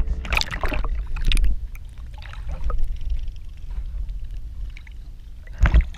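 Water splashing and sloshing as a longnose gar is let go at the surface by hand, then a muffled churning heard with the microphone under water, and a second loud splash near the end.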